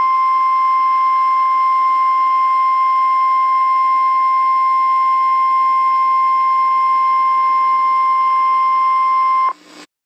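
Emergency Alert System attention tone: a single steady electronic tone at one high pitch, held unbroken, cutting off sharply about nine and a half seconds in.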